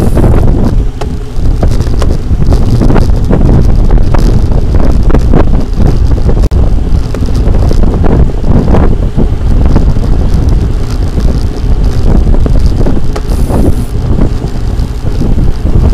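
Loud wind buffeting the microphone of a camera riding along on a bicycle, a dense rumbling rush.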